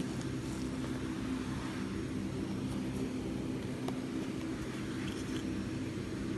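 Several small electric fans running together: a steady motor hum under the whir of moving air.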